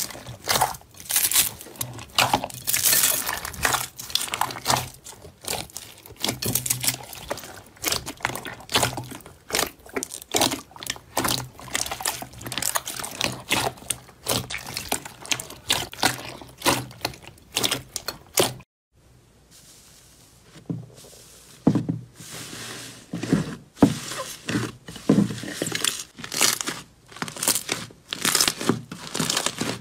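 Foam-bead slime squeezed and kneaded by hand in a glass bowl: a dense run of crackling, sticky pops. After a short near-quiet break about two-thirds of the way in, a lump of glitter slime is pressed and folded by hand, giving slower, separate squishing pops.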